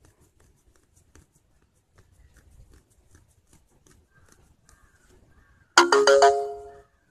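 A short electronic notification chime from the phone, heard near the end as the loan app's approval screen appears. It is a few pitched tones that start sharply, ring together and fade out within about a second. Before it there is only faint room noise.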